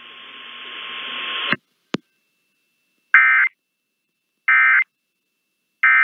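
Emergency Alert System End-of-Message data signal: three short, identical bursts of warbling digital tones about 1.4 s apart, the 'NNNN' code that closes an EAS warning. Before them a hiss swells in loudness and cuts off suddenly, followed by a single click.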